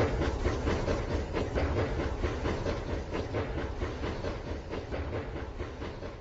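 Rail King toy train running along its plastic track: a steady stream of rapid clicks over the motor's hum, with a hiss.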